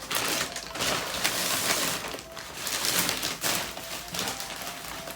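Plastic packaging crinkling and rustling irregularly as a clothing parcel is opened by hand.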